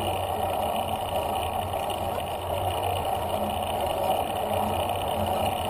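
Steady rushing and humming noise of a bicycle ride, wind and tyre noise on the action camera's microphone while climbing a paved bridge ramp at walking-to-jogging speed.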